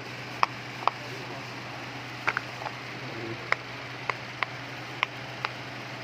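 Silicone pop-it fidget toy bubbles being pressed and popping, about ten sharp pops at irregular spacing, over a steady low hum.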